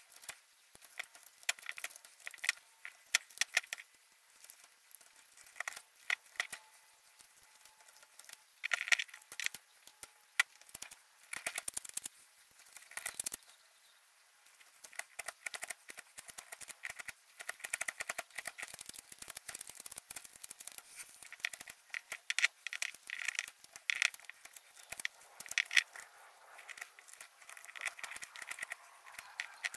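A Stanley knife blade whittling a block of wood: runs of quick, irregular scraping cuts with a dry crackle as shavings come off, broken by short pauses.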